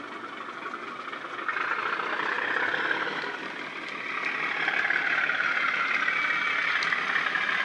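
Bachmann Class 37 model locomotive's Loksound 4 sound decoder playing an SWD Class 37 diesel engine sound through a small EM1 speaker in the fuel tanks. The engine sound grows louder about a second and a half in, dips briefly, then rises again after about four seconds.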